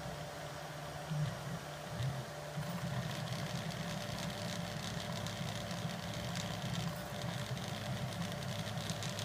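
Home-built Prusa Mendel v2 3D printer printing PLA, its stepper motors buzzing and whirring in a fast, uneven pattern as the print head moves. About two and a half seconds in, the sound becomes busier, with rapid ticks.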